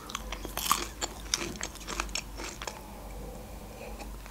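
Close-up crunchy chewing of breaded fried shrimp, a quick run of crisp crackles that thins out after about two and a half seconds.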